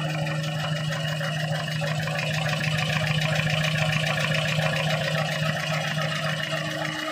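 A 4-line V-fold hand towel paper folding machine running: a steady low hum with a fast, even mechanical clatter from its folding rolls. The hum drops out near the end.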